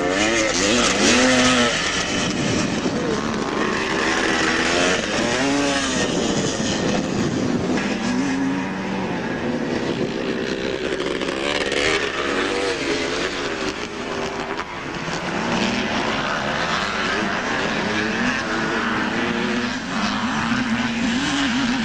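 Vintage 250 cc two-stroke motocross motorcycles racing past, their engines revving up and down again and again through the corners and gear changes.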